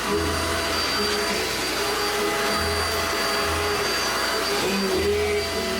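Vacuum cleaner running continuously, a steady rushing noise with a high whine, the low hum coming and going as it is worked over the floor.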